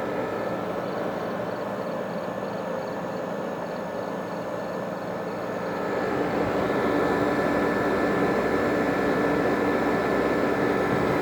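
Vintage window and through-the-wall air conditioners running: a steady fan and compressor drone with a constant hum. It grows louder about six seconds in.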